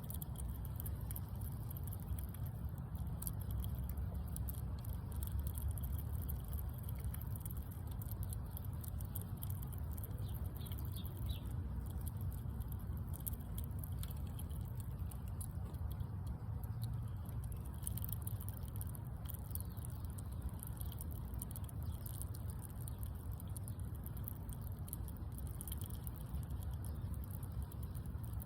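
A squirrel eating, a dense run of small, irregular crunching clicks from its chewing, over a steady low rumble.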